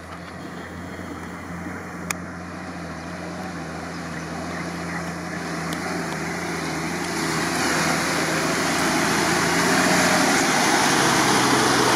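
A 4x4 off-road vehicle's engine running as it wades through deep water toward the listener, growing steadily louder. The rush and splash of its bow wave builds up over the second half.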